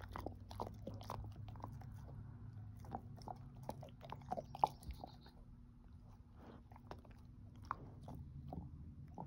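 Dog gnawing a hard chew treat: irregular crunches and clicks of teeth on the treat, some in quick clusters, with quieter licking between them.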